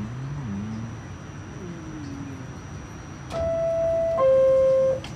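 Subway car door-closing chime on an R46 train: two held tones, the second lower and louder, sounding a little past three seconds in, signalling that the doors are closing.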